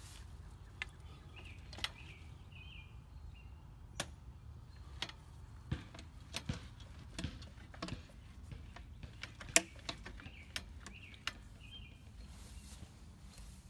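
Outdoor ambience: a low steady rumble, faint bird chirps, and about a dozen irregular sharp clicks, the loudest near the middle.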